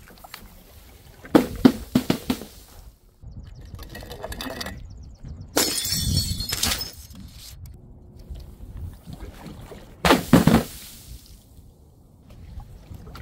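Glass bottles and jars shattering in several separate crashes, with shards clattering and liquid splashing. Sharp impacts come about a second and a half in, a longer crash runs through the middle, and another cluster of impacts comes near the end.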